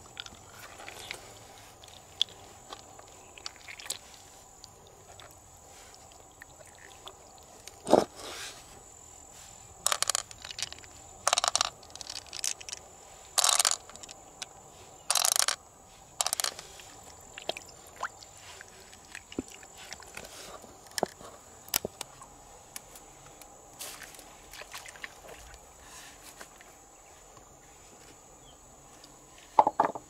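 Fingers digging through the flesh of a large freshwater mussel to pull out pearls: short, irregular wet squelches and scrapes, the loudest in the middle stretch, with scattered light clicks and taps on the shell.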